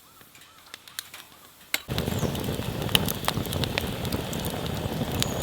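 Fire crackling with sharp pops, starting suddenly about two seconds in after a near-quiet start.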